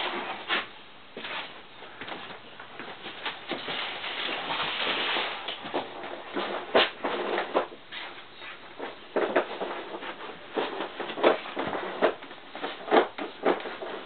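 Irregular clicks and knocks at uneven intervals over a steady hiss, with the sharpest ones in the second half.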